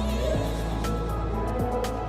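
Background music with a steady beat and held synth tones.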